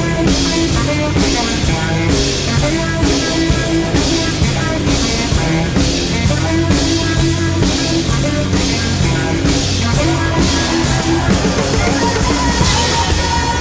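Live band playing: a drum kit keeps a steady cymbal beat under saxophone and guitar, with a held high note coming in near the end.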